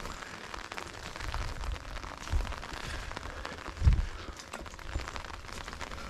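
Rain falling on an umbrella canopy close overhead: a steady hiss with many small taps. Two low thumps come about two and four seconds in, the second the louder.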